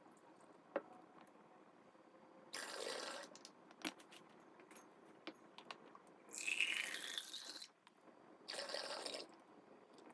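Water pouring in three short bursts, the middle one filling a container with a tone that rises in pitch as it fills. A few light clicks and knocks fall between the pours.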